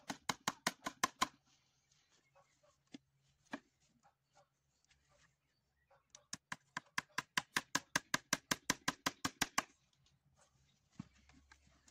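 Rapid, even tapping on wood, about six strikes a second, in two runs: one stops about a second in, the other starts about six seconds in and stops near ten seconds.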